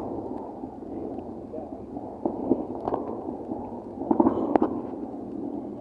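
Scattered firework pops: a couple of sharp cracks a little over two seconds in and near three seconds, then a quick cluster of pops around four seconds in, over a steady background murmur.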